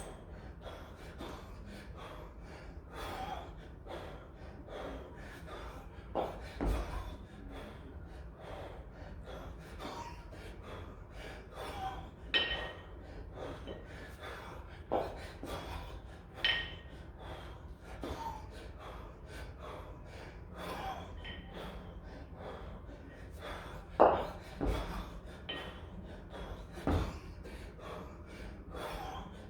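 A kettlebell lifter's hard, gasping breaths, coming in short bursts every few seconds, with now and then a brief ringing metallic clink from the 24 kg kettlebells.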